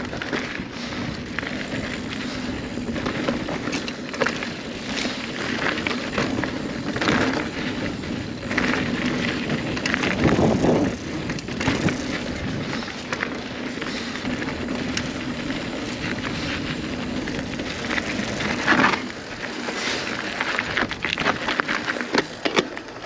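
Steel hardtail single-speed 29er mountain bike (2016 Kona Honzo ST) riding over a rough dirt trail: a steady rolling noise from the knobby tyres, with frequent clatters and knocks as the bike hits rocks and roots.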